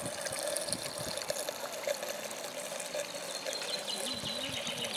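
Steady trickling, splashing water, with faint voices near the end.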